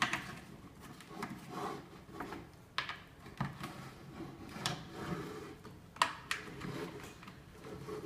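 A stiff, puncture-resistant Schwalbe Marathon Plus wheelchair tire being worked off its rim by hand: low rubbing of the rubber bead against the rim, broken by about half a dozen sharp clicks and snaps.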